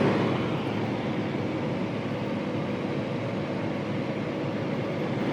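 Combine harvester running at work in a corn field: a steady, unchanging drone of engine and machinery heard from inside the cab.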